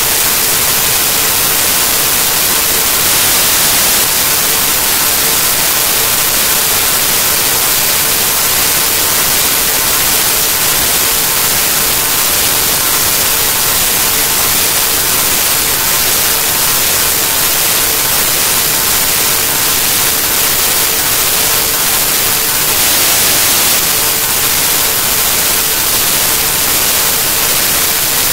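Loud, steady static hiss, brightest in the treble, with a faint steady hum tone underneath.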